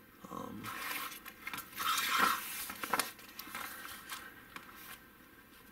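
Paper rustling and crinkling as a large kit instruction booklet is handled and its pages are shifted, in a run of uneven rustles that are loudest about two seconds in and die away near the end.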